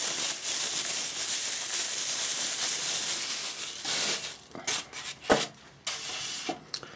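Thin clear plastic bag crinkling and rustling as a camera body is pulled out of it, for about four seconds. Then a few light clicks and knocks from handling the camera and polystyrene packing, with one sharp knock about five seconds in.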